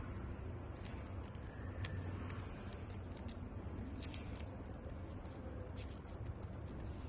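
Hands handling small parts and wires: scattered light clicks and rustles, over a low steady hum.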